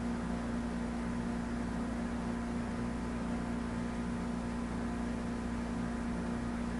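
Steady background hum and hiss with a low held tone and no change, like a fan or electrical hum.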